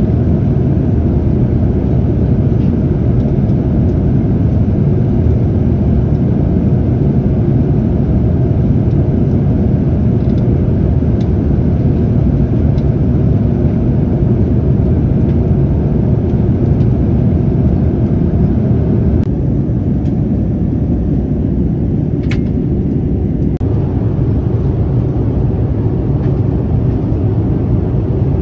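Steady in-flight cabin noise of a Boeing 787-9 heard from a window seat by the wing: a loud, even rush of airflow and engine noise, strongest in the low range. About two-thirds of the way through, the upper hiss dips for a few seconds.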